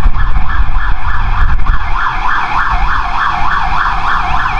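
Police siren in its fast yelp mode, the pitch rising and falling about four times a second, heard from inside a car over a low engine and road rumble.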